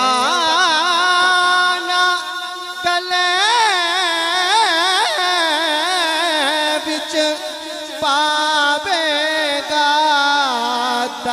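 A man singing a line of Punjabi devotional verse, drawing a single word out into long held notes that waver up and down with ornaments. There are short breaks between the phrases.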